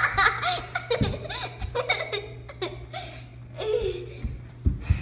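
A young girl laughing and giggling in short repeated bursts, over a steady low hum, with a few short knocks near the end.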